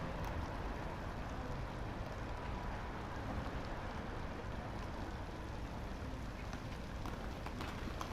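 Skate park ambience: a steady rolling rumble, such as skateboard wheels on concrete, with a sharp click or two near the end.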